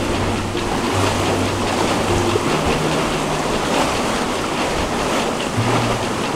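Water rushing and splashing along a sailboat's hull and through its foaming wake as the boat moves under way.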